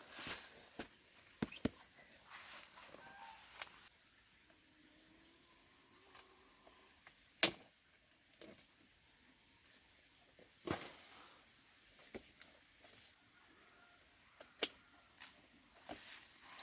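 Insects chirring steadily in a high-pitched chorus, broken by several sharp clicks or knocks, the loudest about halfway through.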